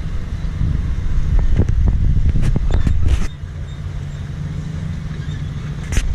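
Diesel locomotive engine running during shunting, louder for about the first three seconds and then dropping back to a lower rumble. Several sharp metallic clicks and knocks come through the middle, and one loud bang near the end.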